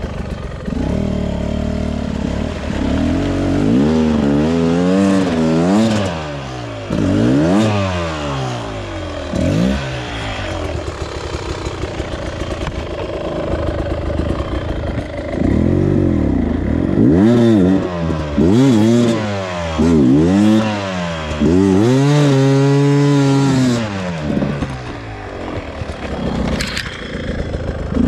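Beta RR 300 single-cylinder two-stroke enduro engine revved again and again, each rev rising and falling back, with short spells at a lower steady speed between and one longer held rev near the end.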